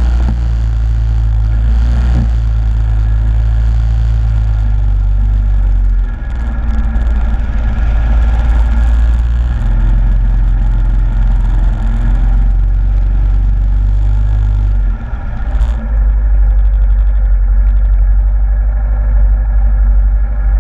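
Yamaha Grizzly ATV engine running under throttle as the quad churns through mud. The engine eases off briefly twice, about six seconds in and again about fifteen seconds in.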